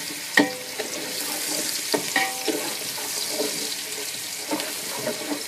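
Chopped red onions sizzling in hot oil and ghee, the start of frying them golden. A wooden spoon stirs them and knocks against the pan a few times.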